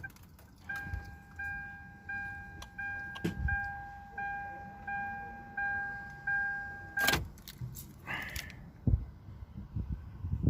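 Car's electronic warning chime dinging on one pitch about every 0.7 seconds, nine times, with a sharp click partway through and another as the chime stops suddenly. Softer knocks and rustling follow.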